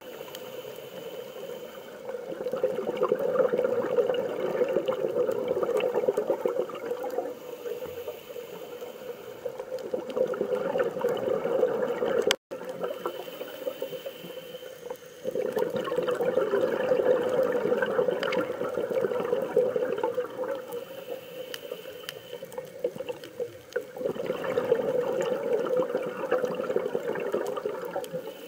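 Water rushing and bubbling in surges that swell and fade every few seconds, with a brief cut about twelve seconds in.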